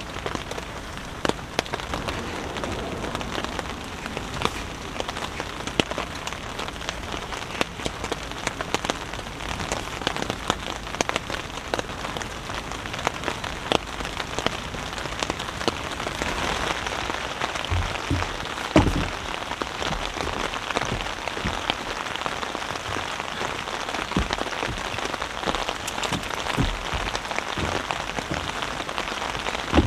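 Heavy rain falling steadily on the fabric of a pop-up tent, heard from inside: a constant hiss with many separate drops striking the canopy. A few dull thumps come about two-thirds of the way through.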